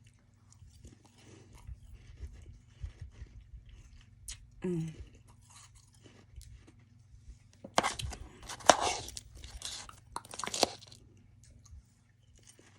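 Close-up crunching and chewing of soft freezer frost in the mouth, with scattered small crackles and the loudest bites about eight and ten and a half seconds in.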